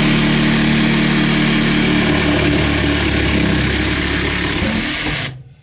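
Cordless jigsaw running at a steady speed as it cuts through a wooden lath, then dying away about five seconds in as the cut finishes.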